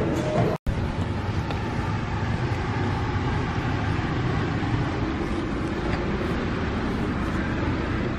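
Steady outdoor street noise, mostly the rumble of traffic. Background music cuts off about half a second in.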